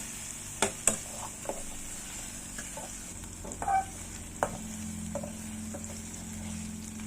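Tofu and ginger garlic paste frying in oil in a pan with a steady sizzle, while a utensil stirs and scrapes it, knocking sharply against the pan a few times. A low hum comes in about halfway.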